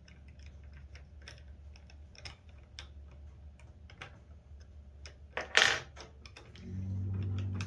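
Quiet, scattered clicks and light metal ticks as a homemade brass knob is screwed onto the crank handle of a Jessem Rout-R-Lift II router lift. There is one louder brief sound about five and a half seconds in, and a low steady hum comes in near the end.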